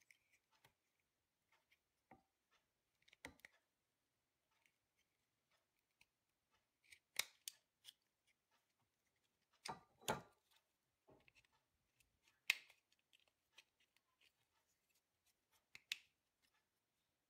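A thin screwdriver prying at the plastic housing of a Daewoo Nexia headlight and turn-signal stalk switch to lift its cover: faint, scattered clicks and snaps of plastic and metal, a few seconds apart.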